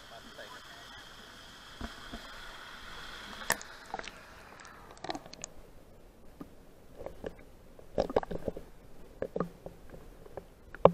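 River water rushing over rocks, with a steady high hum over it. About four seconds in the sound turns muffled as the microphone goes underwater, leaving scattered knocks and gurgles.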